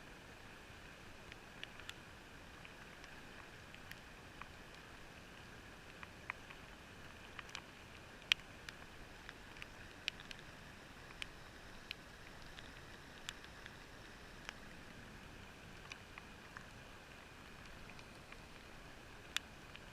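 Faint steady hiss with scattered sharp clicks and ticks, muffled by a sealed GoPro waterproof housing.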